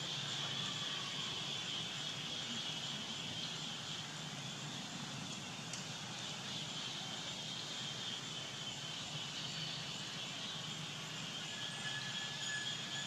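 Steady outdoor ambience: a constant high drone of insects over a low, steady hum, with no distinct events.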